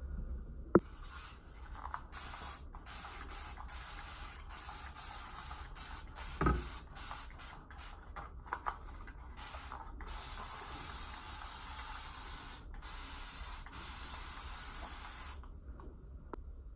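A spray hissing in on-off bursts of varying length, ending in one long unbroken spray of about five seconds. A sharp click comes about a second in and a thump about halfway through.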